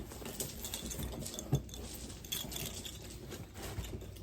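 Fabric rustling with small light clicks and clinks as a jacket is taken off, with one sharper click about one and a half seconds in.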